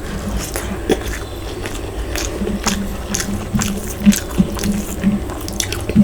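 Close-miked chewing and biting of food: irregular wet clicks and crunches from the mouth, a few of them sharper and louder.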